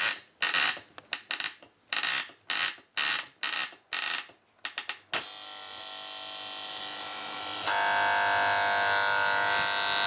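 Plastic flip clock's number leaves snapping over in quick irregular clicks as the time is wound forward. About three-quarters through, the clock's electric alarm buzzer comes on with a loud, steady buzz.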